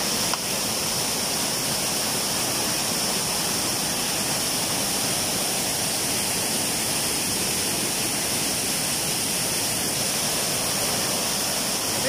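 Waterfall heard up close: a steady, unbroken rush of water pouring down a rock face into a pool.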